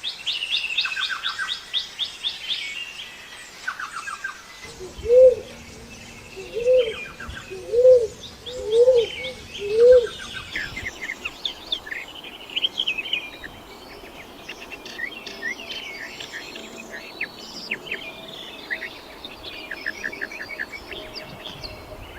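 Wild birds chirping and trilling in quick high notes, with a different bird giving five low, rising-and-falling calls about a second apart in the middle, the loudest sounds here.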